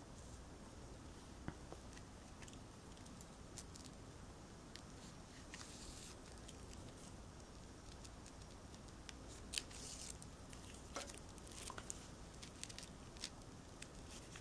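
Faint handling sounds of hand sewing: needle and thread drawn through the fabric and trim of a wrapped bag handle, with scattered small clicks over a low room hum, a couple of them louder near the middle.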